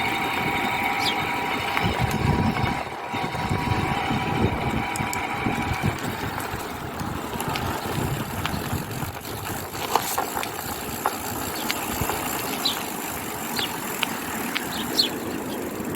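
Electric bike hub motor running with a steady high whine, over a rumbling noise. The whine cuts out about six seconds in, leaving the rumble and a few clicks.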